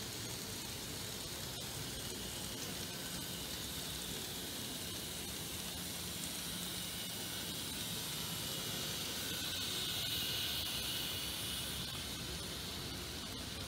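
Z-scale model trains running on the layout track: a steady high hissing whir of tiny motors and wheels, swelling somewhat about ten seconds in as a long tank-wagon train rolls past close by.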